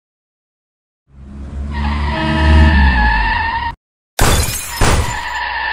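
Dubbed car crash sound effect: an engine revving with tyres screeching, cut off abruptly, then a loud smash of breaking glass and metal, hit twice, with the screech continuing after it.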